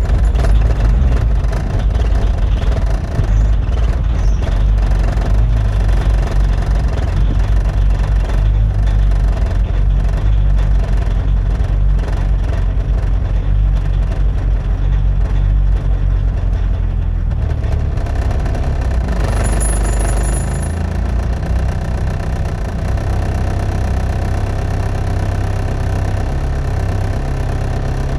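Volkswagen Golf 2 1.6-litre four-cylinder diesel engine idling, heard from inside the cabin. The idle runs a little fast at first and settles lower and slightly quieter about two-thirds of the way through.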